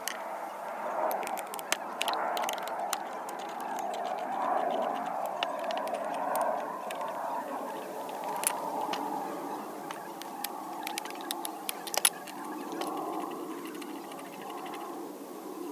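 Cast-iron bench vise parts clinking and clicking as they are handled and fitted together during reassembly: scattered short metallic clicks, one of the sharpest about three quarters of the way through, over a steady background sound.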